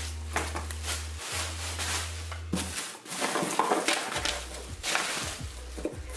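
Clear plastic wrapping crinkling and cardboard packing rustling as wrapped pans are handled inside a cardboard box, in quick irregular rustles and scrapes.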